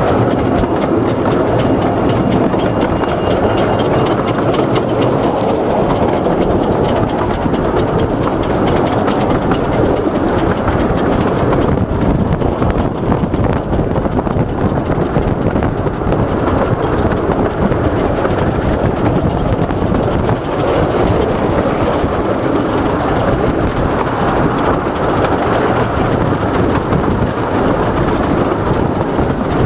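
Miniature railway passenger train running along the track, heard from the side of a moving coach: a steady rumble of wheels on rail with fine, rapid clicking.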